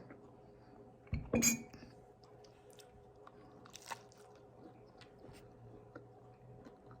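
Quiet chewing with small, faint mouth clicks while eating. About a second in, a single knock and ringing clink of tableware on the table.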